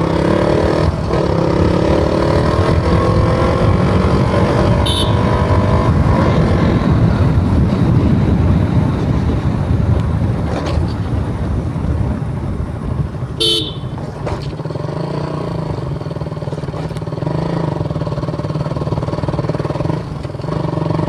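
KTM Duke 200 single-cylinder engine under way, its pitch rising as it accelerates, with a break about a second in like a gear change, then a steady rush of wind and road noise. A vehicle horn gives two short toots, one about five seconds in and one about thirteen seconds in.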